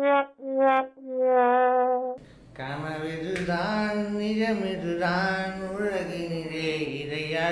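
A conch shell (sangu) blown in four blasts at a steady pitch, the last blast the longest. About two seconds in it gives way to a man singing over backing music.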